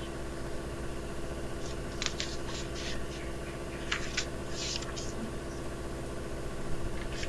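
Steady electrical hum under a pause in the narration, with a handful of short scratchy noises a couple of seconds in.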